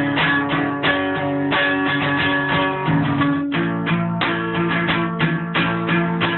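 A guitar strummed in a steady rhythm, with a change of chord about halfway through. The player says the guitar is probably slightly out of tune.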